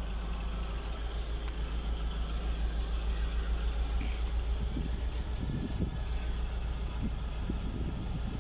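BMW E36 engine idling steadily.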